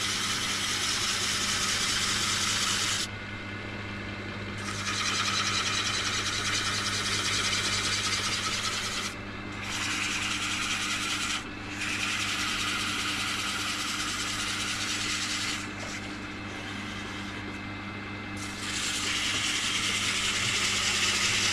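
A wood lathe turning a piece of dar wood while a tool scrapes the spinning surface. The rasping is lifted off a few times, and a steady motor hum runs underneath.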